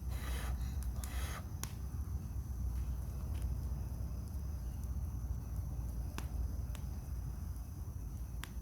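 Wood campfire crackling, with a few sharp, widely spaced pops from the burning logs over a low, steady rumble. A short rush of noise comes in the first second or so.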